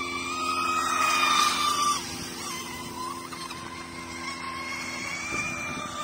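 High-pitched motor whine of a radio-controlled racing boat. It rises in pitch and grows louder with a hiss as the boat passes closest, then drops off sharply at about two seconds and carries on as a steadier, fainter whine.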